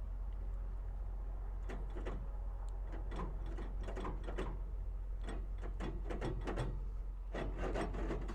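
Combine harvester running with a steady low drone, and irregular mechanical clicking and rattling over it from about two seconds in.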